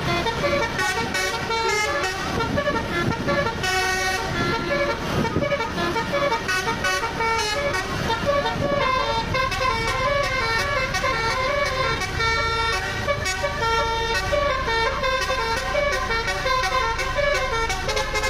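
Telolet bus horns tooting a continuous run of stepped, multi-note horn melodies, several notes overlapping, over a low vehicle rumble.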